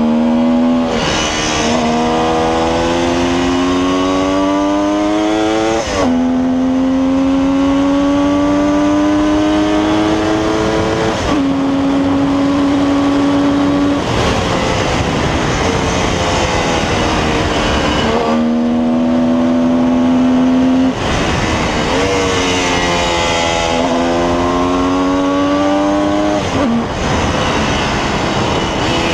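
1972 Kawasaki H2's 750 cc two-stroke triple engine under way, its note climbing in pitch for a few seconds and then dropping sharply, over and over as it is ridden through gear changes and throttle lifts. In places it holds a steady note for a few seconds at constant speed.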